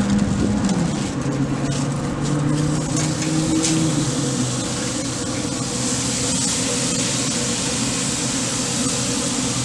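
Steady mechanical hum of a running motor, with a low drone that drops in pitch about a second in and fades out around four seconds in. A few light clicks and crinkles come from tongs on foil in the first few seconds.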